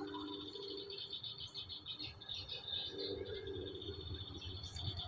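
High chirping of birds and insects, with a low rumble underneath and a faint low hum that comes and goes twice.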